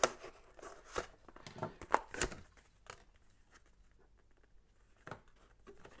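Cardboard-and-plastic blister packaging being sliced and torn open by hand with a small pocketknife: a run of sharp scrapes, crackles and clicks over the first two seconds or so, then quieter handling with a single click about five seconds in.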